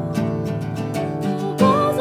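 Acoustic guitar strummed in an even rhythm, its chords ringing on between strokes; a woman's singing voice comes in near the end.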